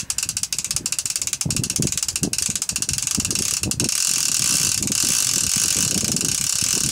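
Drag of a baitcasting fishing reel clicking rapidly as a hooked goliath tigerfish pulls line off against it. The clicks come fast and blend into a steadier buzz from about four seconds in.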